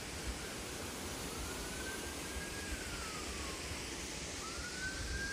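Faint emergency vehicle siren wailing, two slow sweeps that rise, hold and fall away, over a steady rushing background noise.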